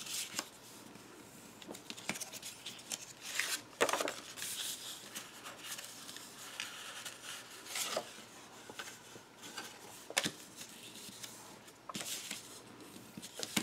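Design paper being folded and creased by hand along its score lines: scattered soft paper rustles and a few crisp taps.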